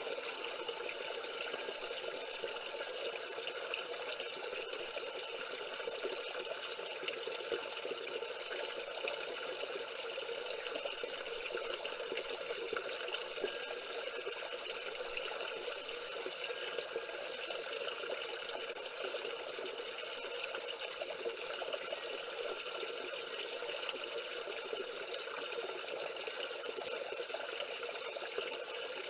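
Small waterfall pouring and splashing over river stones, a steady, even rush of water.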